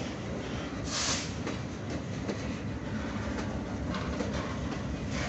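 Loaded coal hopper wagons of a long freight train rolling past close by, wheels rumbling and clacking on the rails, with a short hiss about a second in.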